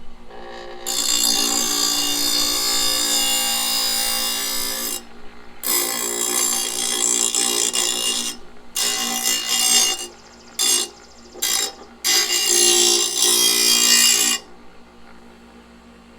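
Harbor Freight bench grinder's wheel grinding a steel blade in repeated passes: one long grind of about four seconds, two shorter ones, then a few quick touches and a final longer pass, over the steady hum of the running grinder motor.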